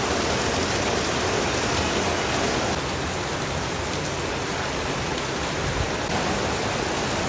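Heavy typhoon rain pouring down, a steady dense hiss.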